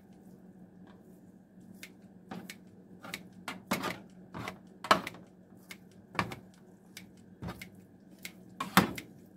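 Kitchen shears snipping through cooked chicken pieces in a metal baking pan: irregular sharp snips and clicks of the blades, the loudest about five seconds in and near the end.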